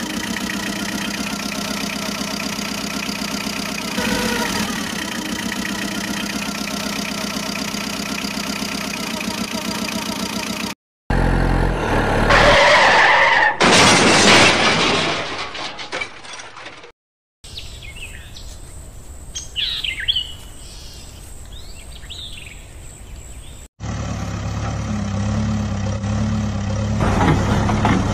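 A truck engine sound runs steadily for about ten seconds. After a cut comes a loud rushing noise for several seconds as the loaded toy tipper overturns and its soil pours out. A quieter stretch with birds chirping follows, then a low steady engine idling sound near the end.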